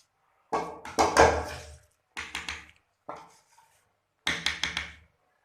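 Kitchen utensils knocking and clattering in four short bursts of taps and knocks. The loudest comes about a second in, and the last is a quick run of about four strokes.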